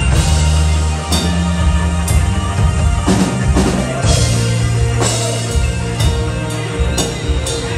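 Live rock band playing: an electric guitar carries the lead over bass and a drum kit, with a steady beat.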